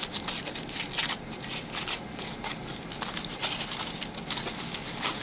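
Foil wrapper being peeled off a Yowie chocolate egg by hand: a continuous run of crinkling and crackling.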